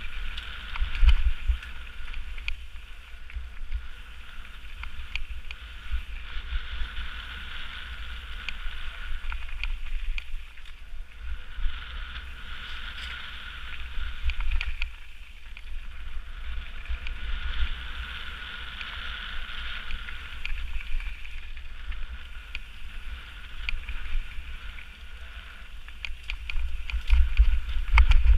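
Mountain bike being ridden fast over a rocky, gravelly forest trail, heard from a camera mounted on the bike or rider. Deep rumble with knocks and rattles as the bike goes over the bumps, the hardest jolts about a second in and again near the end. A high hiss from the tyres and wind swells and fades several times.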